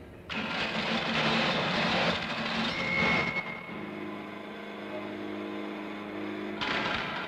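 Mechanical noise for about three seconds, with a brief high whistle in it. It settles into a steady low hum, then turns noisy again near the end.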